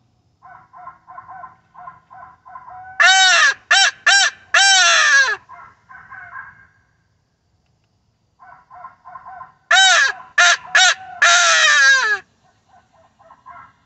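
Hand-blown owl call blown by mouth, in two sequences: each is a quick run of softer short hoots, then three short loud hoots and a long hoot that falls in pitch.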